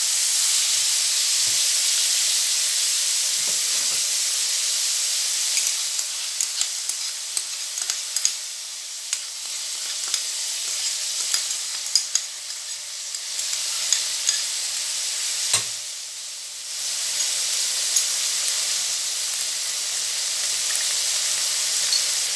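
Bean sprouts and fried tofu sizzling in hot oil in a frying pan while a metal slotted spatula stirs them, scraping and clicking against the pan, as oyster sauce and seasoning powder are stirred in. The sizzle drops briefly about two-thirds of the way through, then picks up again.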